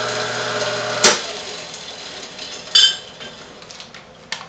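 Hobart Model 3430 coffee grinder's motor humming steadily, then a sharp click about a second in as it is switched off, and the motor winds down. A short ringing metallic clink follows near three seconds, and a small knock comes near the end.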